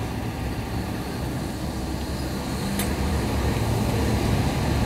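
Road traffic noise: a steady low rumble of vehicle engines that grows slightly louder.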